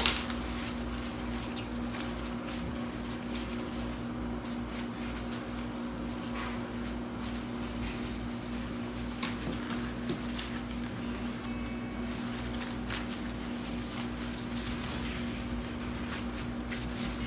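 Ribbon and a hair barrette being handled on a cutting mat: occasional light taps and rustles, the sharpest right at the start, over a steady low electrical hum.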